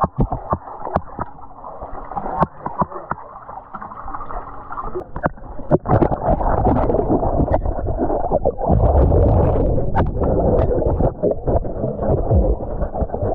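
Muffled underwater sound of pool water picked up by a submerged camera: sloshing and bubbling with many small clicks and knocks. About six seconds in it turns louder and deeper.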